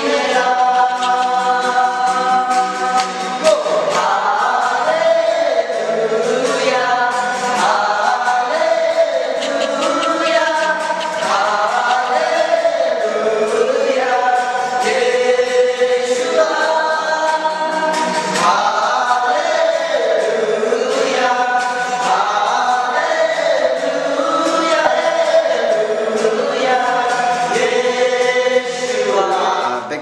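Voices singing a Christian worship song together, with "Hallelujah" in the lyrics, in long held notes.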